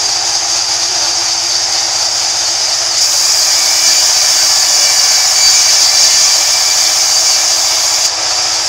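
Sawmill band saw running with its blade cutting lengthwise through a wooden plank, a steady high-pitched whine and hiss. The cutting sound grows louder about three seconds in and drops back near the end.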